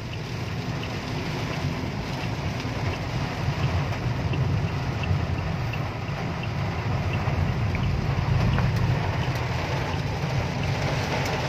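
Heavy rain pelting a car's windshield and roof, heard from inside the moving car, over a steady low rumble of tyres and wind. It grows louder partway through.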